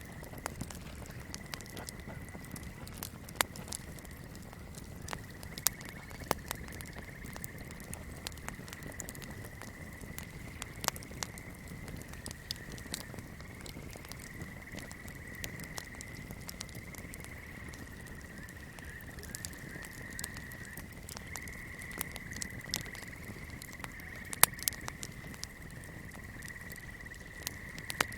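Swamp night chorus: a steady high trill that wavers slightly in pitch, over a low rumble. Fire crackling sounds over it, with scattered sharp pops and one louder pop near the end.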